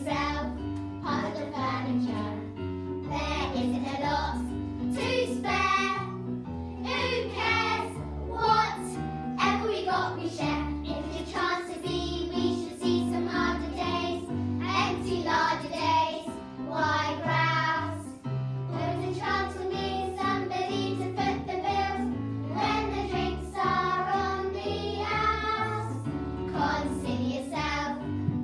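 A group of young girls singing a show tune together, with a musical accompaniment holding low notes underneath.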